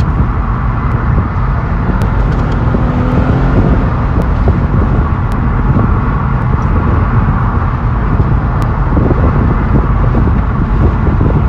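Steady wind and road noise from an open-top convertible driving at highway speed.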